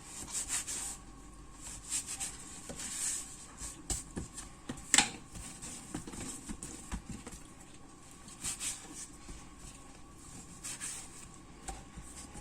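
Hands working bread dough on a kitchen worktop: soft pats and rustles with scattered light clicks, and one sharper knock about five seconds in.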